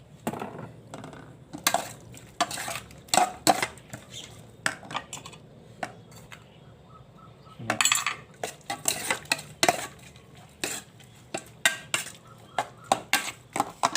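A spoon clinking and scraping against a bowl in irregular clatters as the pork salad is tossed and mixed, with a lull of a couple of seconds near the middle.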